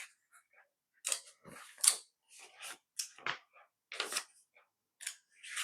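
Plastic construction-kit pieces and pins being pulled apart by hand, a string of irregular sharp clicks and snaps with brief rattles.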